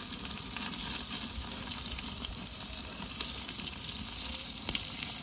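Steak sizzling with many sharp crackles on a very hot cast-iron Grizzler plate inside a propane pizza oven, its fat flaring up into flames, over a low steady rumble.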